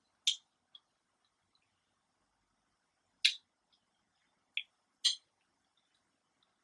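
Eating noises: four short, sharp clicks scattered a second or more apart, with near silence between.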